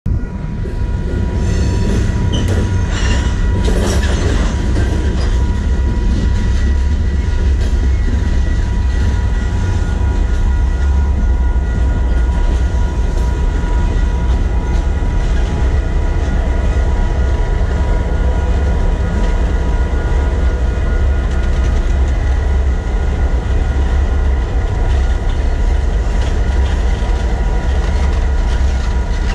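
Freight cars and a CN diesel switching locomotive rolling slowly over a level crossing: a heavy, steady rumble with wheel clatter and clanks in the first few seconds, and a steady high tone running underneath.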